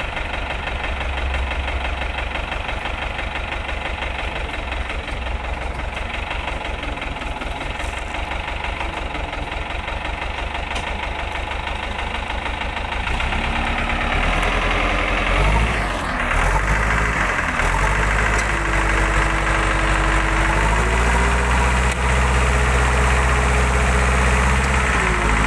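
Heavy-equipment diesel engine running steadily at low revs, then revving up a little past halfway and working under load, its pitch rising and falling before holding higher.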